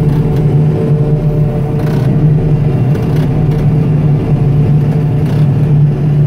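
John Deere 5830 self-propelled forage harvester chopping corn for silage, heard from inside its cab: a loud, steady machine drone with an unchanging low hum.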